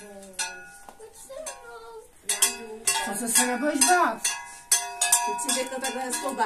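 Small bells worn by a Czech čert (devil) costume, jangling and clanking repeatedly as the wearer moves. The strokes come thicker and louder after about two seconds, with a voice faintly under them near the middle.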